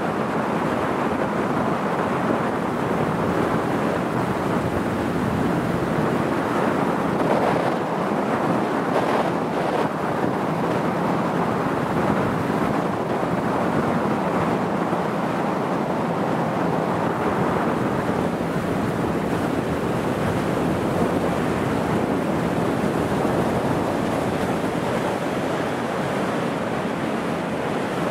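Steady rush of wind on the microphone and water streaming past a moving motorboat, with the boat's engine droning low underneath.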